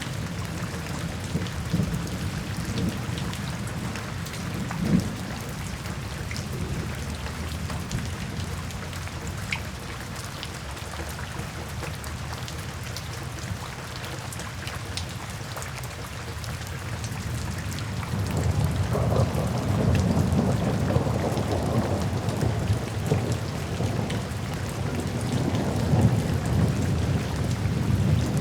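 Steady rain falling, with a deeper, louder rumble swelling in about two-thirds of the way through.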